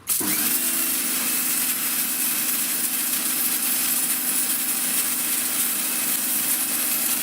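Sunpow BCN-H electric pressure washer starting abruptly as the trigger is pulled, its motor hum settling within the first half second under the loud, steady hiss of the high-pressure jet striking block paving.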